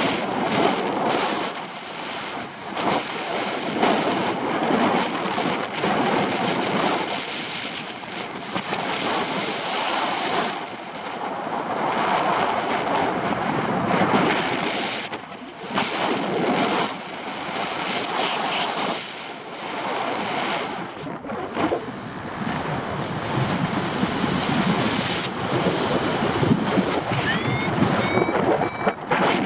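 Airflow buffeting the camera microphone of a paraglider in flight: a steady rushing that swells and fades, with a few short high beeps near the end.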